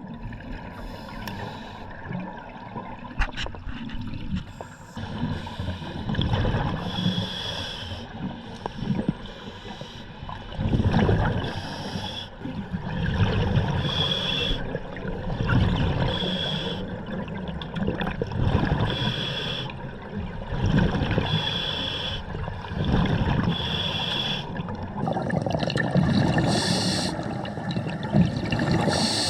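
Scuba diver breathing through a regulator underwater, with gurgling exhaled bubbles; the breaths swell and fade every two to three seconds.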